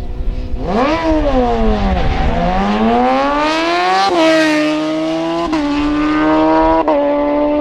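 Racing motorcycle engine revving off the start line and accelerating hard: the note sags as it launches, then climbs steadily, dropping back with three quick upshifts.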